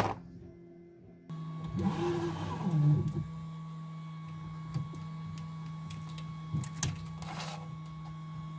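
A 3D printer running, with a steady mechanical hum. About two seconds in, its motors whine with changing pitch for about a second as it moves, and a few light clicks come later.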